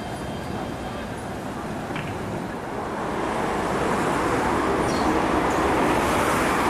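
Steady running noise of a tram, heard from on board. From about three seconds in it gives way to louder, denser city street traffic noise.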